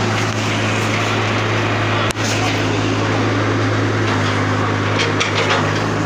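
Diesel engine of a Komatsu backhoe loader running at a steady speed, a loud, even hum, with a momentary break about two seconds in.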